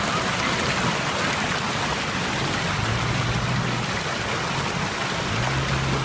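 Steady rushing noise of a 4x4 driving off-road, with a low engine hum rising and falling now and then.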